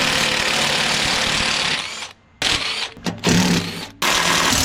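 A power driver running in several bursts of a second or two each, with short pauses between them, backing the bolts out of the skid steer's access plate.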